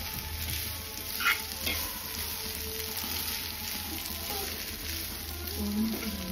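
Noodles and vegetables sizzling in a nonstick frying pan while being tossed and mixed with a fork, with a brief scrape of the fork against the pan about a second in.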